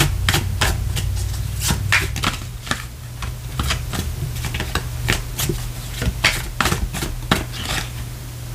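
A tarot deck being shuffled by hand: a run of quick, irregular card clicks and slaps over a steady low hum.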